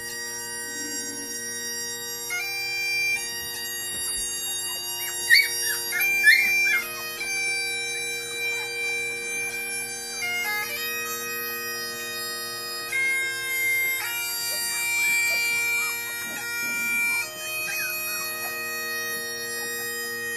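Bagpipe music: a melody stepping between held notes over steady, unchanging drones.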